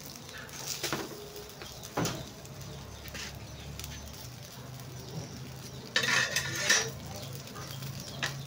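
Metal tongs clinking against a wire grill grate: a few separate clinks, then a louder metallic clatter lasting under a second about six seconds in.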